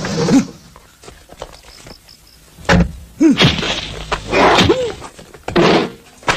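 A fist fight: several sudden blows and thuds with short grunts, starting about two and a half seconds in.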